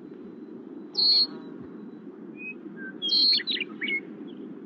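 Blackbirds' sharp alarm calls as they mob a young red-tailed hawk: a single call about a second in, then a quick run of several calls a little after the middle, over a steady low rumble.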